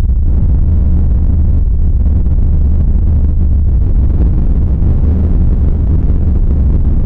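Creepy ambient sound effect: a loud, steady, deep rumbling drone that does not change.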